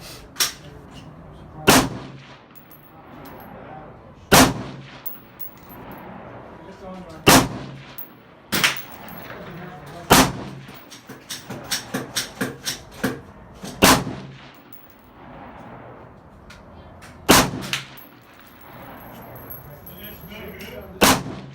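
Gunshots on a firing range: loud single shots every two to three seconds, each with a short echo, and a quick string of lighter shots about halfway through.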